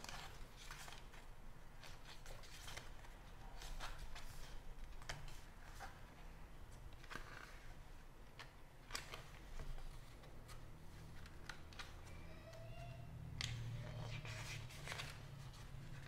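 Photobook pages being turned by hand: faint paper rustles and soft flicks, scattered through, over a low steady hum.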